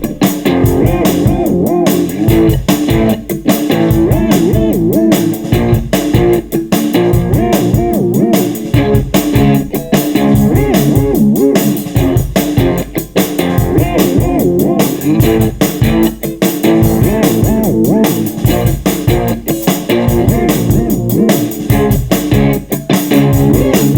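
Instrumental passage of a bluesy rock song: guitar played over a steady drum beat with a low bass line, no singing.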